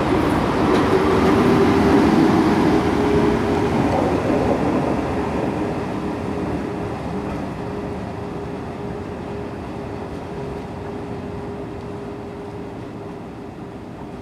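NSB electric multiple unit pulling away, its wheel and running noise fading steadily as it recedes, with a steady hum throughout.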